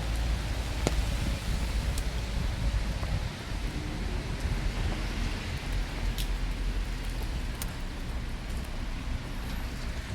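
Steady rain falling, with a few sharp drop taps standing out over the hiss and a heavy low rumble underneath.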